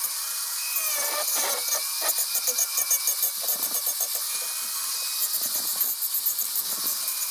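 Angle grinder with a saw-chain carving disc running steadily, its motor whining while the chain rasps and chatters in short irregular strokes as it cuts into a walnut branch.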